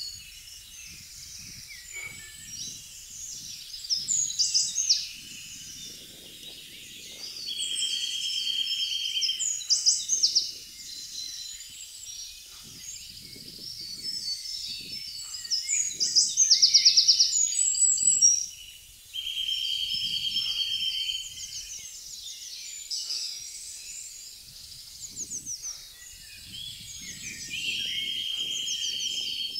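Woodland songbirds singing in a busy chorus of overlapping chirps, trills and phrases. A steady high buzzing note, about two seconds long, comes in three times.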